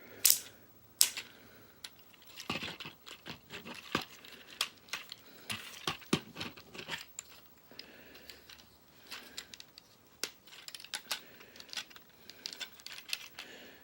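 Hard plastic parts of a transforming robot toy clicking, snapping and rattling as it is handled and folded, with two sharp snaps in the first second and many lighter clicks after.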